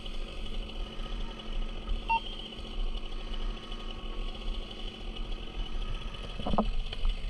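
An engine running steadily at idle, a constant mechanical hum.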